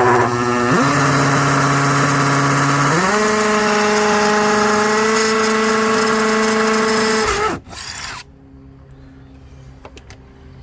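Cordless drill driving a screw through a cedar shutter: the motor runs steadily, steps up in pitch about three seconds in, then winds down and stops about seven seconds in.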